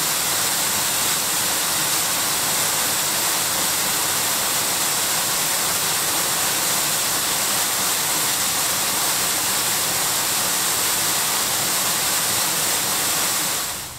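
Waterfall plunging over rock into a pool: a loud, steady rush of falling water that drops away sharply near the end.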